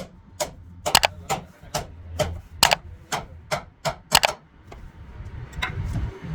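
Rapid series of sharp hammer taps, about two to three a second, stopping about four seconds in, with a couple of fainter taps near the end.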